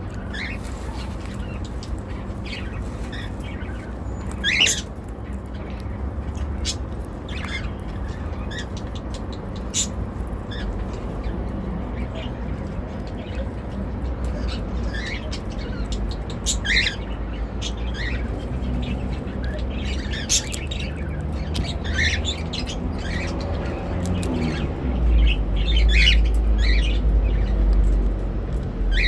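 Indian ringneck parrot cracking and eating sunflower seeds: scattered short, sharp cracks and clicks mixed with brief squawks and chirps. A low rumble joins in near the end.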